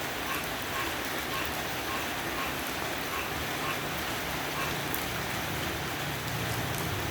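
Steady patter of light rain, with a faint regular tick about twice a second. A low hum comes in near the end.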